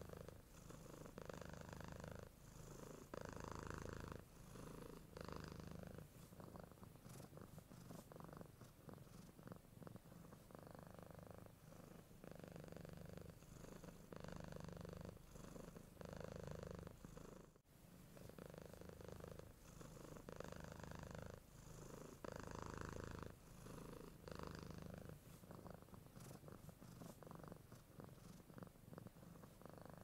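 Domestic cat purring, quiet and continuous, swelling and easing in waves about a second long, with a brief break about halfway through.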